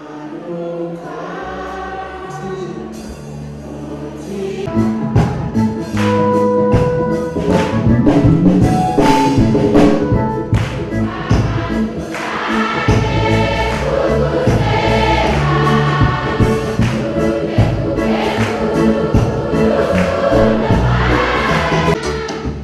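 A church choir sings a gospel hymn to electronic keyboard and drum kit. It begins softer with held keyboard and voice notes, and the full band with drums comes in loud about five seconds in.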